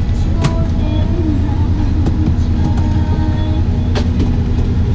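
Boat engine running steadily, a low drone, with a couple of sharp clicks or knocks, the first about half a second in and the second near the end.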